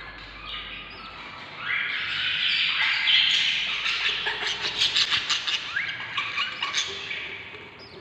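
Budgerigar chicks and hen in the nest box, with a string of high chirping begging calls that grows louder and quicker in the middle, then fades near the end.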